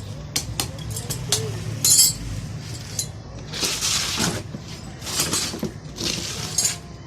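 Hard objects clinking and tapping several times, then three short rushing, hissing noises about a second apart.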